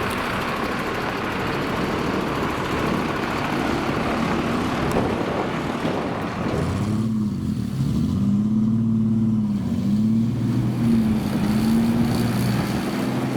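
Banger racing cars running on the track, a broad mix of engines. About halfway through, one engine comes to the fore, its pitch rising and falling again and again as it revs up and eases off.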